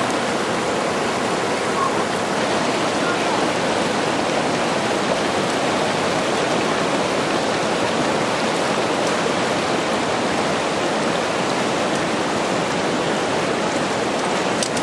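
Fast, turbulent mountain river rushing and churning over a stony bed: a steady roar of water.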